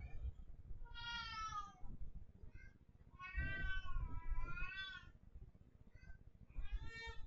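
Kittens mewing: three clear high mews, the first falling in pitch, the second long and wavering over about two seconds, with a couple of faint short mews between them.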